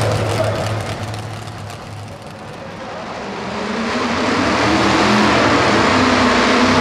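Hot-rod pulling tractor engines running hard. The sound dips about two seconds in, then builds over the next few seconds to a steady, loud, high-revving run with a slightly rising pitch as a tractor pulls down the track.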